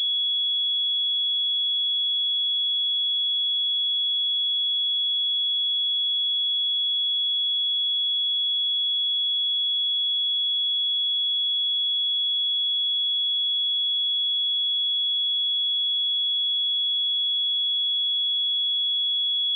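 A steady 3365 Hz sine-wave test tone: a single pure high-pitched tone held at constant pitch and level.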